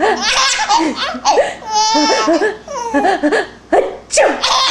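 Five-month-old baby girl laughing hysterically in a giggle fit, a string of short belly laughs one after another.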